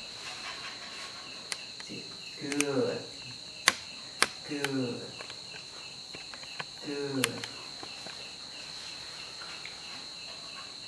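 Cricket chirping steadily in a fast, even rhythm over a high steady tone, with a few sharp clicks, the loudest near the middle.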